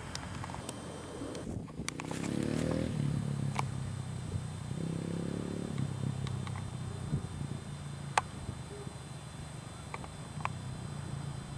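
Dirt bike engine running at a distance, revving up with a rising pitch about two seconds in and again about five seconds in, then settling to a steady drone. A few sharp clicks sound over it, the sharpest about eight seconds in.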